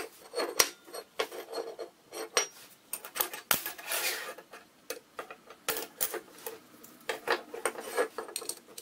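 Short pieces of steel flat bar and channel being handled on a wooden workbench: irregular metal clinks and knocks as they are set down and touch each other, with brief scrapes as they slide on the bench.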